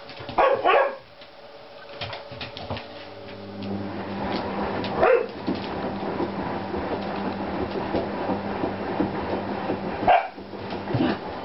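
Dogs play-fighting. There are two sharp barks right at the start, single barks about five and ten seconds in, and a running rough growling and scuffling between them.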